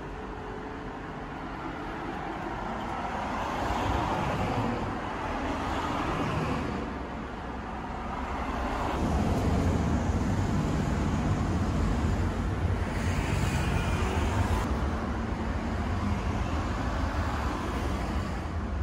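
Road traffic going by: cars passing in swells, then a low engine rumble that comes in about halfway and stays loud to the end.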